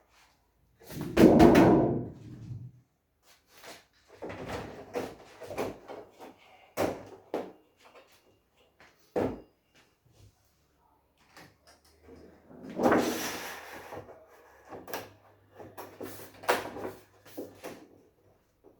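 Irregular knocks, clatter and rattling of plastic and metal LCD TV parts being handled and fitted during reassembly. There is a louder clatter about a second in and another about 13 seconds in.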